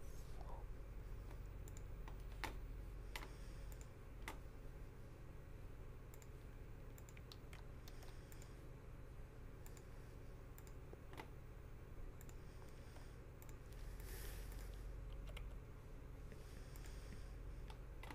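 Faint, scattered clicks of a computer keyboard and mouse over a low steady hum.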